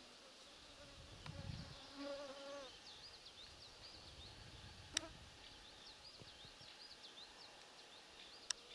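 A flying insect buzzes briefly past the microphone about two seconds in, over faint high twittering. Two sharp clicks come later, about five and eight and a half seconds in.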